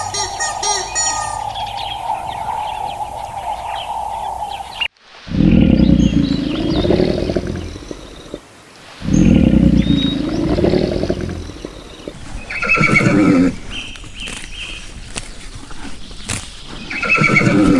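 Horses neighing: two long, low calls, then two shorter, higher whinnies near the end. They follow a different steady sound that cuts off abruptly about five seconds in.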